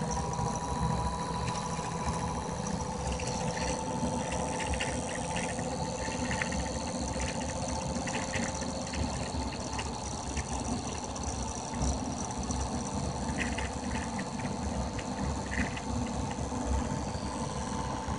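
Homemade pulse motor running, its rotor spinning between pulsed coils: a steady two-note whine over a low rumble. The whine sags slightly in pitch over the first few seconds, with scattered faint clicks.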